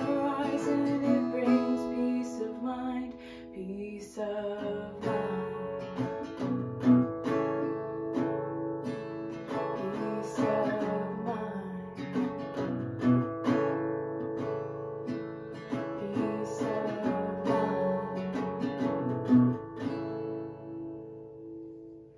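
Acoustic guitar strummed in a steady rhythm through a song's closing bars, ending on a last chord that rings out and fades near the end.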